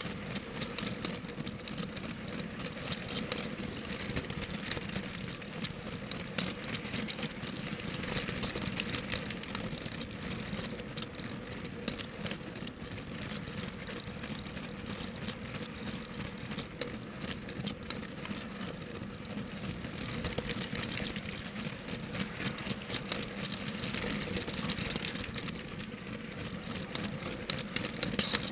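Toy LEGO train running steadily on plastic track, heard from on board: a continuous rapid clicking rattle of the wheels on the track with a steady whine from the electric motor.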